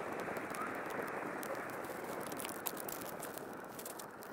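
Campfire burning: a steady hiss of flames with many small crackles and pops.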